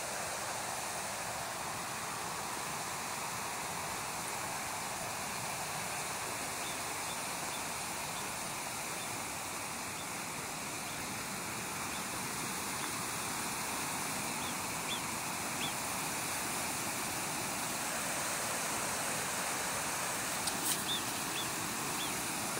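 Small alpine mountain stream rushing and splashing down a rocky channel, a steady even rush. A few faint clicks near the end.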